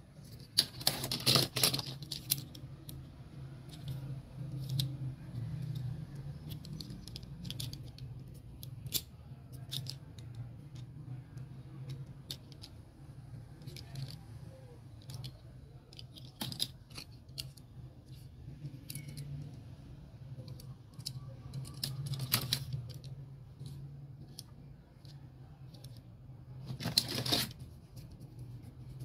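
Small clicks, taps and rattles of diecast and plastic toy cars and trucks being handled and turned over in the hands, with a few louder scraping rustles, over a steady low hum.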